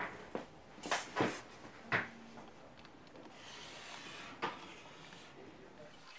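Felt-tip marker drawing on paper at a desk: a few short, sharp rubbing strokes in the first two seconds, a longer soft scraping stroke a little past the middle, and one more short stroke near the end.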